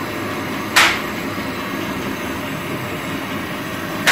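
Steady rushing hiss of a lit gas stove burner under a pot of heating cooking oil, with two short sharp knocks, about a second in and at the very end.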